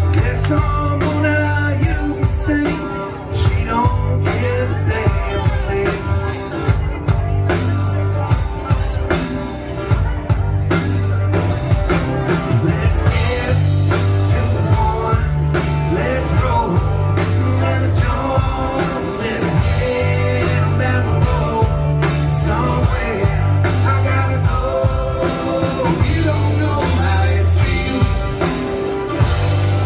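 Live rock band playing a song: electric guitars, bass and drums with a lead vocalist singing, at a steady driving beat.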